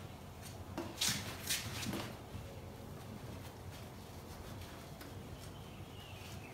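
Handling noises from a baby bassinet being taken apart: a few short rustles and knocks of fabric and plastic about one to two seconds in, then quieter fiddling.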